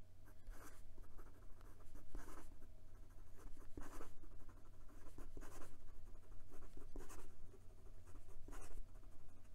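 Steel fountain pen nib scratching across notebook paper in fast, looping strokes: a run of short, irregular scratches, about one every second.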